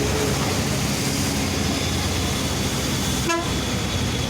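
Steady low rumble of an idling vehicle engine, with a thin constant high whine from about a second and a half in and one brief sharp sound about three seconds in.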